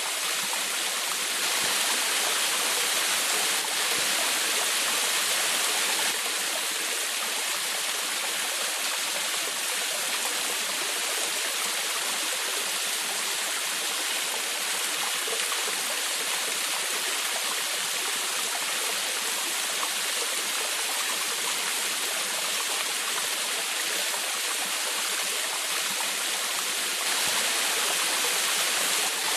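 Small forest waterfall and stream, water rushing and splashing in a steady, even hiss.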